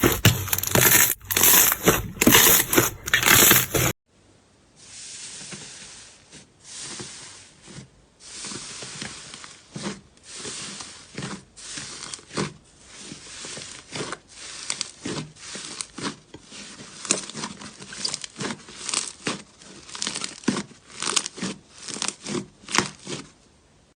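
Slime being squeezed and stretched by hand, making sticky, irregular crackles, clicks and small pops. The first few seconds are louder and denser, then it cuts to a quieter stretch of scattered crackling.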